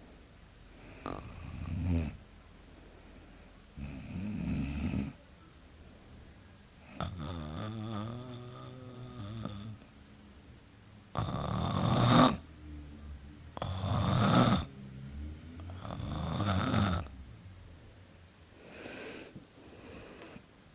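A woman snoring in her sleep: about eight snores in twenty seconds at an uneven pace, each swelling and then stopping. A longer snore with a steady pitched drone comes about seven seconds in, and the loudest snores come about halfway through.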